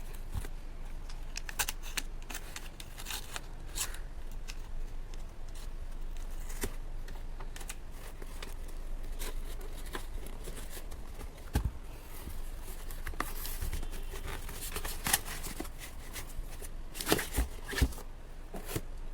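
Delivery packaging being cut and torn open by hand, with ongoing rustling, scraping and clicks as it is worked. There are a few sharper knocks partway through and near the end.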